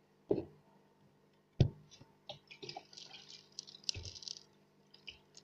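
Water splashing, dripping and squelching around a fish tank being cleaned, with two sharp knocks early on and another near the end, over a faint steady low hum.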